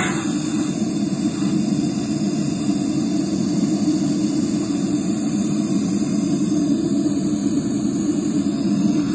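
Gas blowtorch burning steadily, its flame heating an engine block's cylinder bore to expand it around a seized piston.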